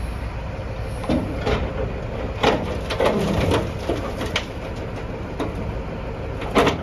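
Material handler's engine running under load as its grapple clamps onto a heavy rusty steel cement-mixer drum, with a string of metal clanks, scrapes and creaks from the grapple and drum, the loudest knock near the end.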